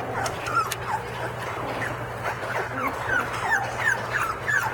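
A litter of very young puppies whimpering and squeaking: many short, high, falling cries, several a second and overlapping. The pups are hungry.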